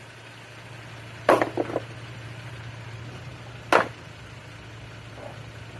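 Rocks knocking together as a rock is moved by hand: a sharp knock with a couple of smaller clacks about a second in, and another sharp knock a couple of seconds later. A steady low hum runs underneath.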